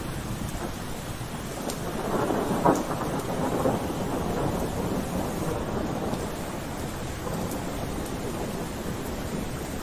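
Steady rainfall. Between about two and four seconds in, a louder swell rises, topped by a sharp crack.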